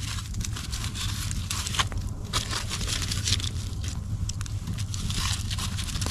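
Campfire crackling with irregular sharp pops, mixed with short bouts of scraping and rustling.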